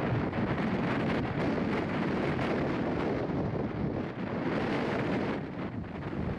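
Strong wind blowing across the microphone in a sustained gust, a dense low rush that eases slightly near the end.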